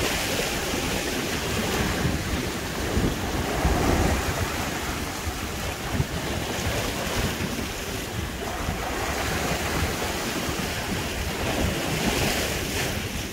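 Ocean waves washing over shoreline rocks, with wind rumbling on the microphone.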